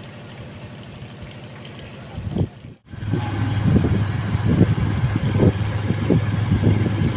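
Strong gusty wind buffeting a phone microphone, with a steady low hum underneath. The sound drops out briefly about three seconds in, and the buffeting is louder after it.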